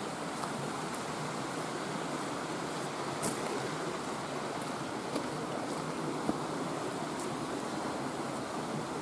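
Steady rush of a small forest creek running over rocks, with a few faint clicks about three, five and six seconds in.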